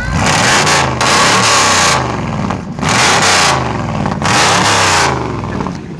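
1935 Chevy pickup's hot-rodded V8, with a big Crane cam and a straight-piped 2-inch stainless exhaust with turbo tubes, revved hard four times. The pitch rises and falls back between blips.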